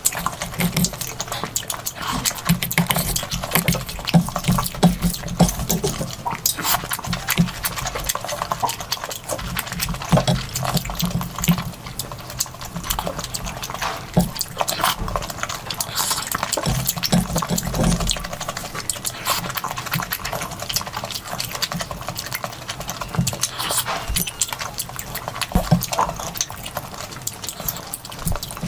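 Close-miked eating: continuous wet chewing, lip-smacking and mouth clicks, irregular and fairly loud.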